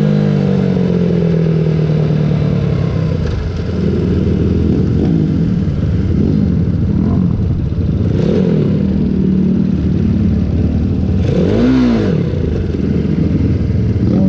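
Mini GP 140 minibike's engine heard onboard, easing off from speed in the first couple of seconds, then running at low revs with repeated short throttle blips that rise and fall, one of them loudest near the end.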